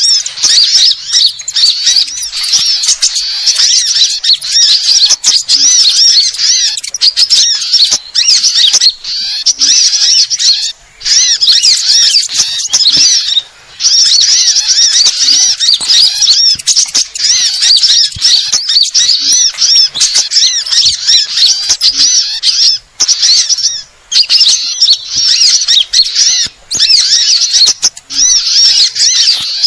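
Bird-lure recording of many small songbirds calling all together: dense, rapid, high-pitched chirps and trills with only a few brief pauses. It is a noisy mixed-species lure call of the kind played to draw small birds in for trapping.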